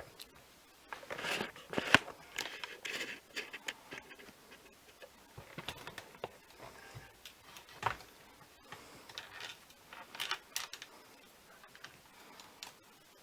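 Irregular clicks, taps and rustles of hands handling parts and cables inside a PC case, with a sharp click about two seconds in and another near eight seconds.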